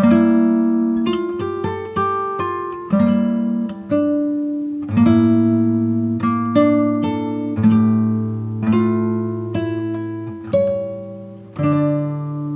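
Background music on a plucked string instrument, likely acoustic guitar: picked notes and chords struck about once a second, each left to ring and fade.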